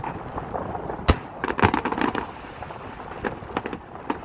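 Aerial fireworks bursting: one sharp bang about a second in, then a quick cluster of crackling pops, with more scattered pops near the end.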